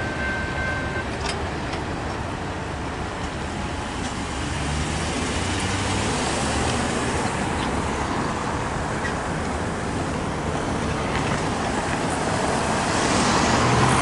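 Road traffic crossing a railroad grade crossing: cars and pickup trucks driving over the tracks, with engine and tyre noise that grows louder near the end.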